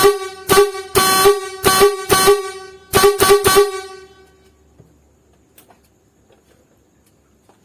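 Snail-type (Scania/Volvo-style) truck air horn, freshly repaired and working again, giving a string of about eight short blasts in quick succession, one a little longer about a second in, then stopping just under four seconds in.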